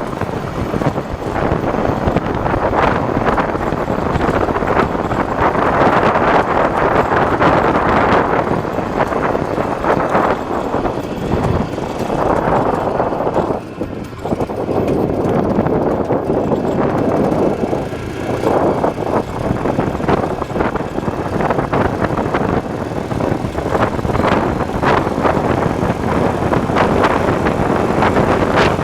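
Wind rushing over the microphone of an IZh Planeta 5 motorcycle with sidecar on the move, mixed with the running of its single-cylinder two-stroke engine, loud and unsteady, dipping briefly about halfway through.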